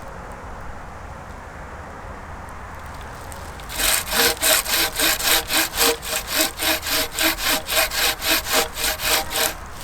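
Hand saw cutting through wood in quick, even back-and-forth strokes, about three or four a second. The strokes start about a third of the way in, after a few seconds of quiet outdoor background.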